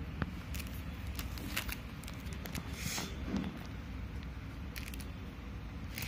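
Light handling sounds of wooden ice cream sticks and cardboard being pressed and tapped by hand, a few small clicks and a brief rustle about three seconds in, over a steady low rumble.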